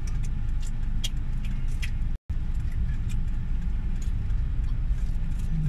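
Steady low rumble inside a car cabin, with short crackles of a plastic food bag and mouth sounds of eating: finger-licking and a bite. The sound cuts out for an instant a little over two seconds in.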